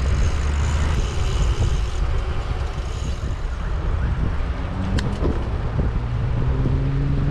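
Wind buffeting the microphone of a camera on a moving bicycle: a steady low rumble, with a short sharp click about five seconds in.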